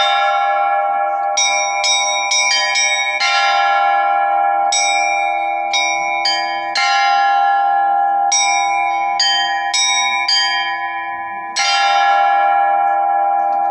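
Russian Orthodox church bells rung by a bell-ringer in a zvon pattern. Quick, uneven strikes on the smaller bells ring on over one another, and louder strikes come about every three to five seconds.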